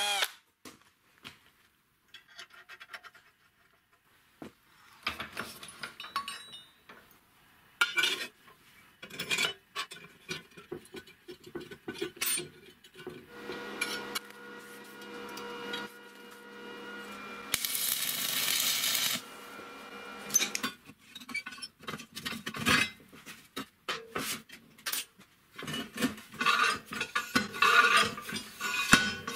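Steel parts clinking and knocking as a welded metal stand is handled and fitted together, many separate clanks. A steady hum runs for several seconds in the middle.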